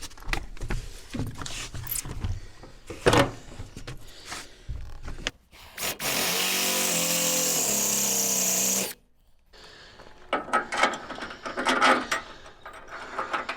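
Electric drill running for about three seconds, its motor pitch rising a little before it stops abruptly, with knocks and clatter of tools and metal parts being handled before and after.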